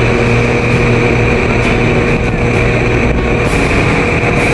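Motorboat engine running steadily at speed, over a constant rush of wind and water.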